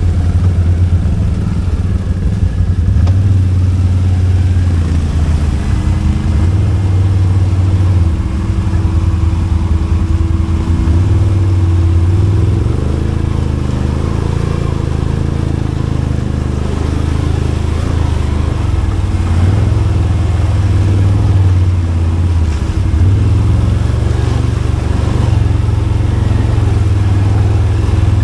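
Can-Am Outlander ATV's V-twin engine running under the rider while riding a muddy trail, its note rising and falling as the throttle opens and closes.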